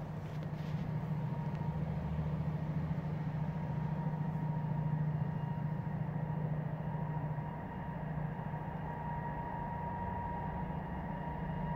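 An engine running steadily out of sight, a low drone with a faint high whine that comes up more clearly in the second half.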